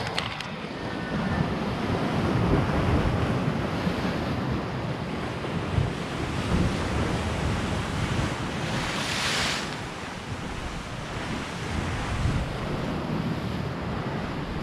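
Wind buffeting the microphone over surf breaking on the shore, with one louder rush of surf about nine seconds in.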